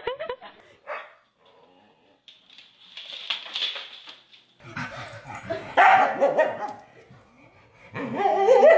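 Dogs barking, loudly about halfway through and again near the end.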